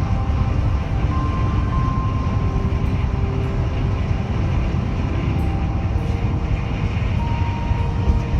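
Steady low rumble of a moving vehicle, with slow, soft music notes held over it one after another.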